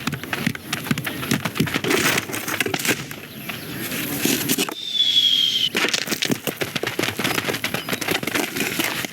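Animated-film sound effects for a bird attack scene: dense crackling and clicking. About halfway through the crackling stops for a second while a single high whistle slides down in pitch, then it resumes.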